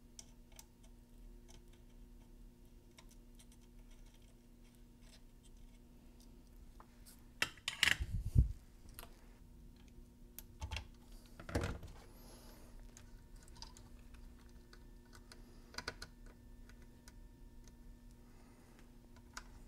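Small clicks and taps of hand tools, pliers and side cutters, and wire leads being worked on a speaker crossover board, with louder clatters about eight and about twelve seconds in. A faint steady hum runs beneath.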